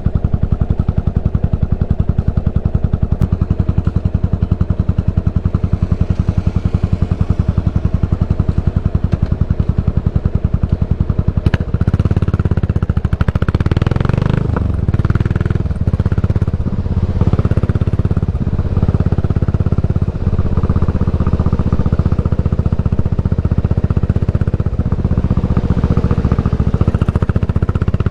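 Yamaha SR400's air-cooled single-cylinder four-stroke exhaust through a Goods Tapered Cone slip-on muffler, idling with an even beat at a standstill. About 11 seconds in it gets louder as the bike pulls away and rides on under throttle.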